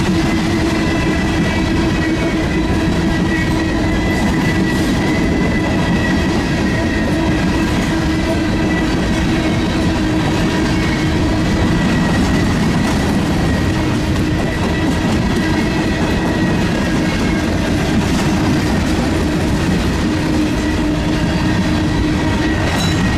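Freight train of covered hopper cars rolling past close by: steady rumble and clatter of wheels over the rail joints, with a continuous ringing tone running under it.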